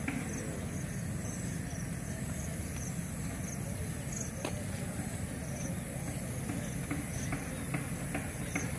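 Outdoor ambience of an insect, likely a cricket, chirping: a faint high chirp repeating about every two-thirds of a second over a steady low rumble, with a few light clicks near the end.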